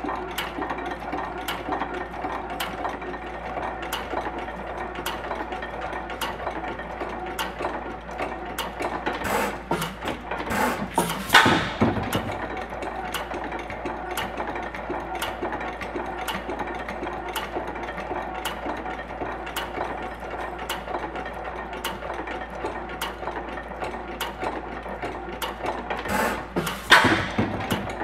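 International Harvester 10 hp Famous hit-and-miss stationary gas engine running, with a steady clicking of its valve gear about one and a half times a second. Louder bursts come about a third of the way in and near the end.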